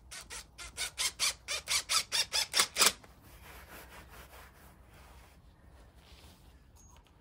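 Cordless power driver sinking a screw through the artificial grass edge into a plastic batten, in about a dozen quick bursts of the trigger over three seconds, the last ones loudest, then it stops.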